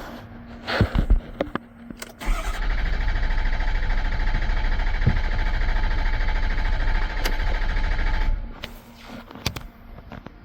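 A few clicks, then the 2015 Ford F-550's starter cranks the engine steadily for about six seconds without it catching, and it cuts off abruptly. The engine cranks but does not start, which the seller puts down to a fuel problem.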